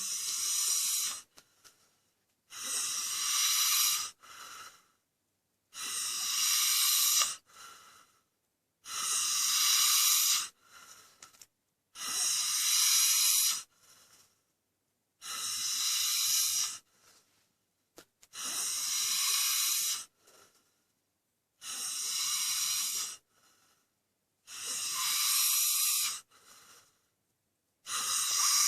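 Snoring in a steady rhythm, about one breath every three seconds: each cycle is a long, hissy snore followed by a shorter, fainter one, with near silence between.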